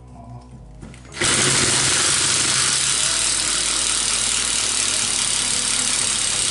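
Ryobi power tool in its impact (hammer) mode starting up about a second in and running steadily with a dense, rapid hammering, chipping off wall tile.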